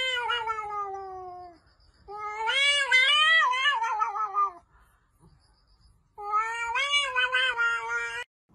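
A cat yowling in three long, drawn-out calls, the first falling in pitch and the second wavering, during a standoff with another cat through a window.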